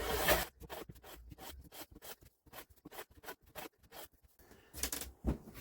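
A block of wax rubbed in quick short scrapes over the metal sole of a hand plane, to cut friction and keep the sole from heating up. A longer rub at the start, then a run of quick irregular scratchy strokes, and a couple more rubs near the end.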